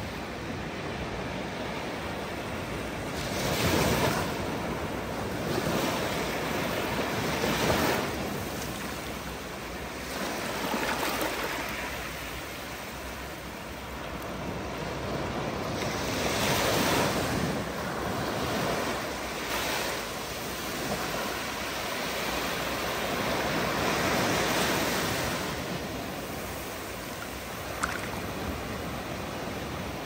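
Small ocean surf breaking and washing up a sandy beach, each wave swelling to a rushing hiss and fading every few seconds.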